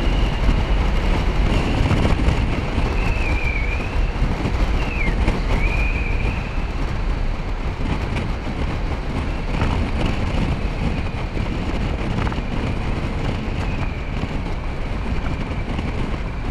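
Motor scooter being ridden at road speed: heavy wind rush on the microphone over the engine's running, with a high whine that wavers and dips in pitch during the first several seconds.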